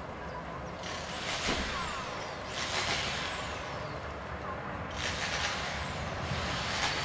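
Road vehicles passing by on the street below, each a short rushing tyre hiss that swells and fades with a falling pitch, four times over a steady background hum.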